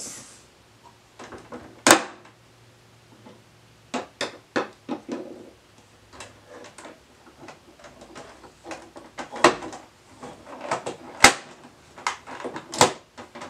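Plastic toy ponies and a toy van being set down and pushed about on a wooden dresser top: scattered, irregular clicks and taps, with a few sharper knocks, the loudest about two seconds in and again near the end.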